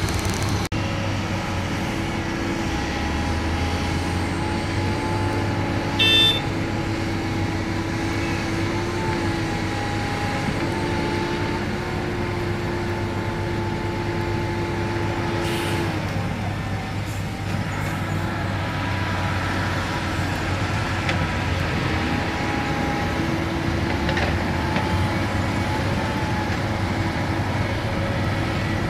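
Heavy diesel engine of earthmoving machinery running steadily, its pitch shifting now and then as it works. A brief, louder sharp sound with a ringing edge comes about six seconds in.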